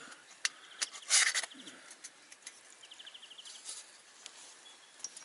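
Light metallic clicks and clinks of Trangia spirit-stove parts, thin aluminium windshield pieces and stakes, being handled and fitted together, with a louder cluster about a second in. A faint high rapid trill sounds twice in the background.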